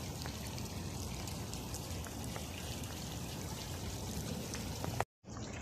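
Water from an ornamental fountain splashing and trickling steadily. It cuts out for a moment about five seconds in.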